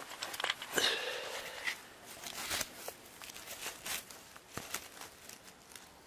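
Irregular crackles, rustles and light knocks from hands-on handling and moving about the hive, with dry pine needles underfoot.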